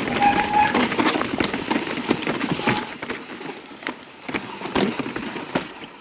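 Mountain bike ridden over a rough trail: the tyres clatter over rocks and roots, with a constant uneven rattle of the bike. A short squeal comes near the start.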